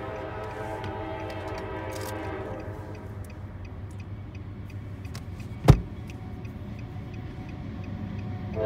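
Air horn of an approaching CSX freight locomotive trailing off over the first couple of seconds. Then a low steady rumble, with a grade-crossing bell ticking in a quick even rhythm and one sharp knock a little past halfway.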